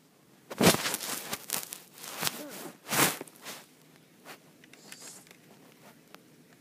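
Scraping and rustling handling noise on the recording device's microphone, in several bursts, loudest about half a second in and again about three seconds in, then a few faint clicks.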